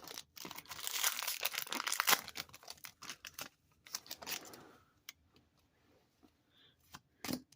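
Foil wrapper of a trading card booster pack being torn open and crinkled: a dense crackling for about two seconds, then scattered softer rustles and a few sharp clicks.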